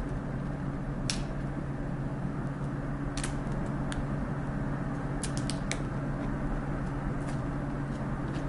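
Scattered small clicks and ticks of fingernails picking at and peeling the clear plastic protective film off an iPod touch, over a steady low hum in the room.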